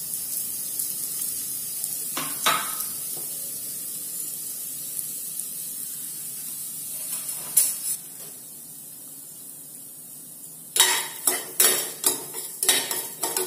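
Broken wheat frying in ghee in a stainless steel pan, with a steady faint sizzle and a couple of single knocks. Near the end, a steel ladle starts stirring it, scraping and clinking rapidly against the pan.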